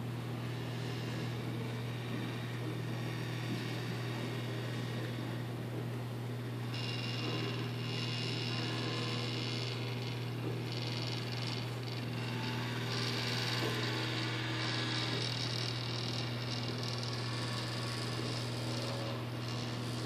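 Motor drive of a Chuck Hoberman expanding dome model running as the linkage slowly raises the dome: a steady low hum with a higher whir that grows stronger about a third of the way in and again past halfway.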